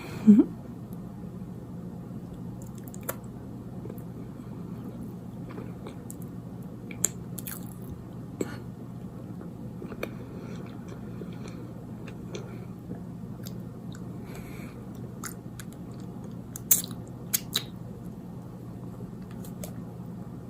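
A person chewing a cinnamon roll close to the microphone: soft, wet mouth sounds and scattered sharp clicks, over a steady low hum. There is a loud short sound with a brief rising pitch just after the start, and a few louder clicks close together near the end.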